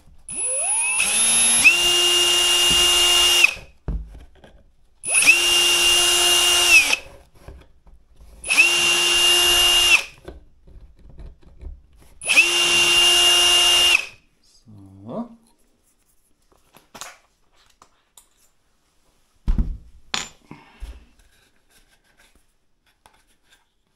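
Electric drill boring 4.5 mm holes for 4 mm screws, in four runs of about two seconds each with a steady whine. The first run spins up at its start. A few light knocks and clicks follow near the end.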